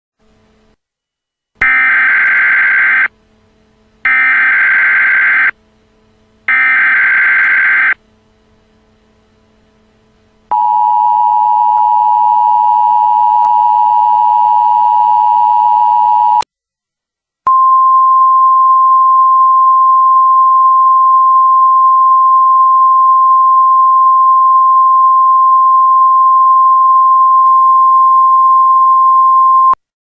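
Emergency Alert System signal, simulated: three short screechy bursts of the digital SAME header, each about a second and a half long. Then comes the two-tone attention signal for about six seconds, and after a brief pause a single steady weather-radio alert tone that holds for about twelve seconds and cuts off just before the end.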